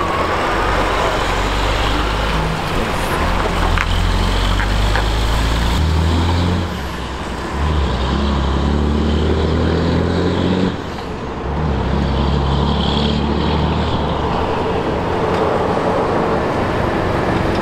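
Heavy-haul semi truck's diesel engine pulling away with a loaded lowboy trailer, working up through the gears; the engine note drops briefly twice, about seven and eleven seconds in, as it shifts.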